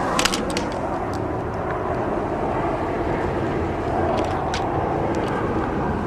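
Steady rush of a moving car, engine, road and wind noise, with a few faint clicks over it.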